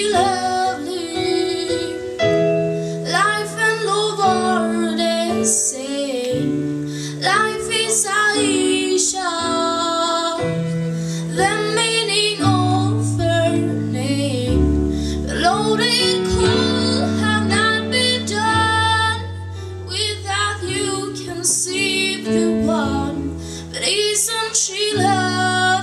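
Young female solo vocalist singing a song into a handheld microphone over instrumental backing that holds steady chords, changing every second or two.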